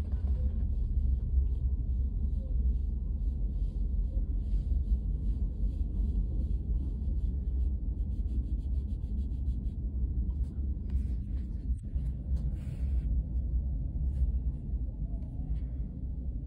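Steady low rumble, with faint light clicks and rubbing from a wireless computer mouse being handled and moved on a cloth mousepad.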